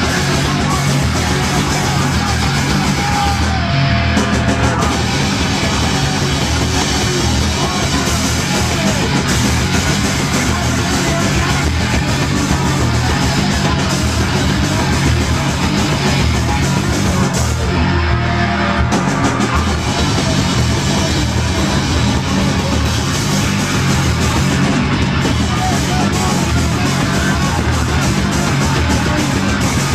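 Punk rock band playing live and loud: distorted electric guitar, bass and drums, with a singer yelling into the microphone.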